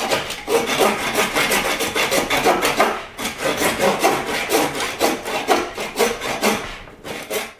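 A hand wood saw cutting through a beef marrow bone in quick repeated strokes, with a brief pause about three seconds in. The sawing cuts off suddenly at the very end.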